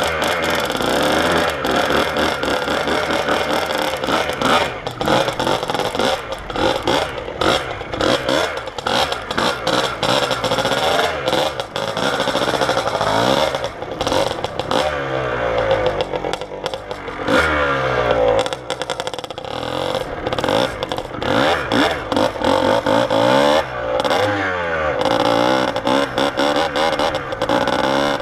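Kawasaki KDX two-stroke dirt bike engine revving up and falling back over and over as it is ridden through heavy unplowed snow, the pitch rising and dropping every few seconds. Many short knocks and clatters run through it.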